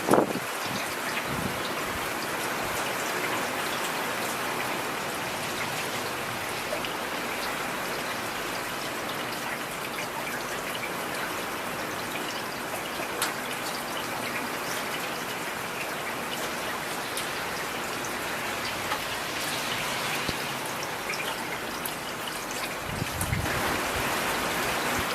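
Steady rain falling, a dense patter of raindrops with fine scattered drips. A low rumble builds in near the end.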